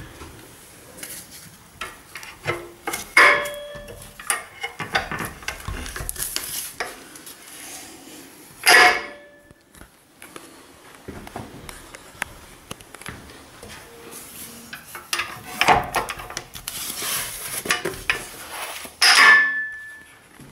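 Steel legs of a folding mitre saw stand being handled and unfolded: a run of small clicks and rattles, with a few louder metallic clanks that ring briefly as the legs snap into place.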